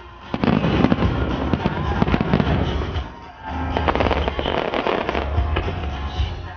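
Starmine fireworks salvo: rapid overlapping shell bursts and crackling, pausing briefly about three seconds in before a second run, with music playing underneath.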